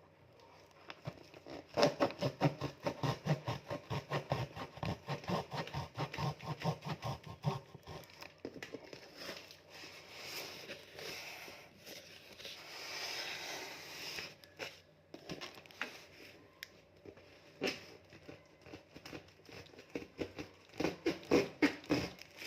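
Parcel packaging being handled and opened: crinkling, rustling and tearing, with a run of quick repeated scraping strokes, about three or four a second, in the first third.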